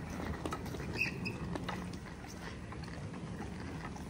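Wheels of hard-shell rolling suitcases rumbling and rattling over a concrete path, a steady gritty clatter.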